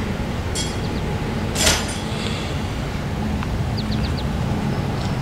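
An engine idling with a steady low hum, and a sharp metallic clank about a second and a half in.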